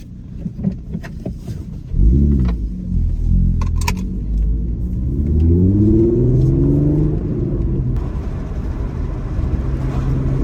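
Audi TT's 3.2 VR6 engine pulling away and accelerating, its pitch climbing, dropping back at a shift, then climbing again before settling into a steady cruise, running smoothly on freshly fitted coil packs that were put in to cure a misfire. A few sharp clicks come just before it pulls away.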